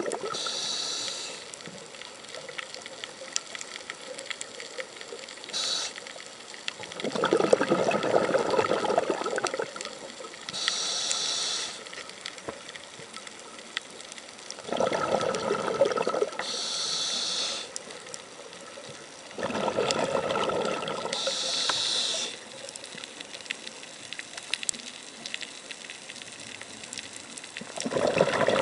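Scuba diver breathing through a regulator underwater: a short hiss of air drawn through the demand valve, then a longer, louder burble of exhaled bubbles, repeating through several breaths with quiet pauses between.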